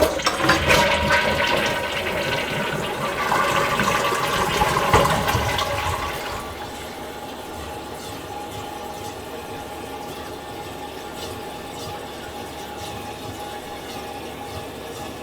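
Toilet flushing: a sudden loud rush of water that drains away after about six seconds, then the tank refilling with a steady, quieter hiss of water through the fill valve.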